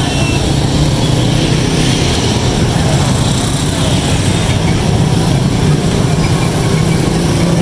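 Steady low engine rumble of traffic on a busy market street.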